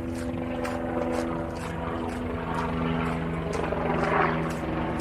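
A steady engine drone made of several held tones, shifting in pitch about halfway through. Under it, walking footsteps tick about twice a second.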